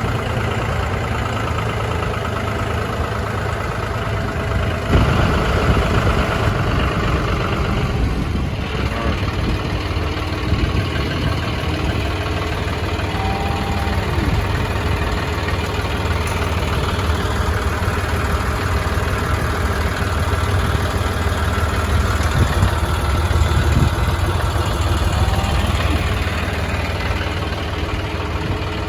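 Diesel tractor engine running steadily, getting a little louder about five seconds in.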